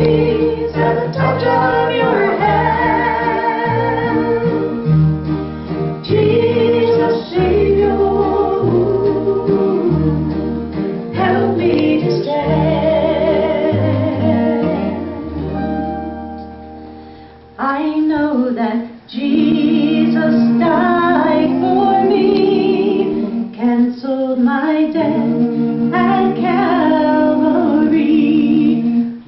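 Live music from a group: sung voices over a stepping bass line and guitar. About seventeen seconds in, the bass and instruments drop away and several voices carry on singing.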